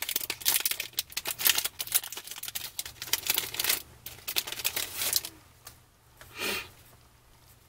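Foil trading-card pack wrapper crinkling and tearing as it is ripped open and the cards are pulled out, a dense run of crackly rustles for about five seconds. It then goes quiet apart from one short soft sound near the end.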